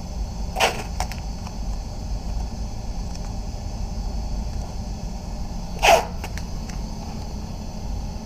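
Two short clunks about five seconds apart, with a few faint clicks, over a steady low hum.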